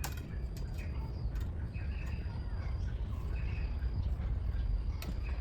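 Birds chirping faintly over a steady low rumble, with a sharp click at the start and another near the end.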